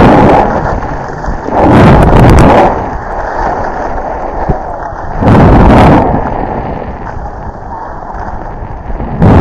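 Rushing noise of a skier's downhill run: wind buffeting the camera microphone, with skis running over snow. It swells loud four times, about every two to three seconds.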